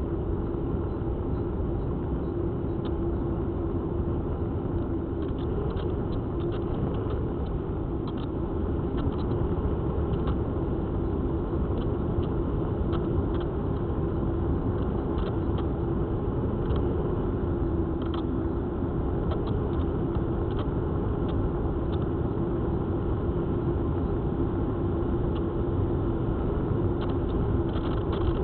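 Onboard audio of an FPV model plane in flight: the electric motor and propeller hum steadily under a rumble of airflow over the camera's microphone, with scattered faint ticks.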